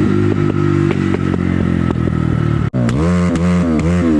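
Crossfire CX250R 250 cc motorcycle engine running with sharp irregular pops over the engine note, the misfire the bike is known for. After a sudden break about two-thirds of the way in, it is revved in quick blips, the pitch rising and falling.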